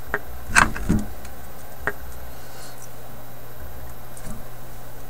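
Hand tools clicking and clattering on a workbench, with a sharp knock and thump about half a second in as the loudest sound, then a few lighter ticks, over a steady low hum.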